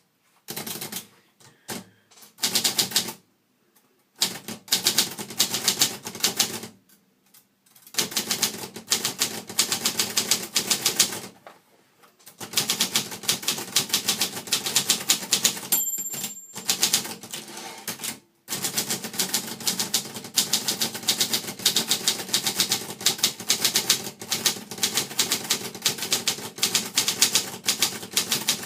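Brother Deluxe 660-TR portable manual typewriter being typed on: runs of rapid key strikes broken by short pauses, with a brief high ring about halfway through.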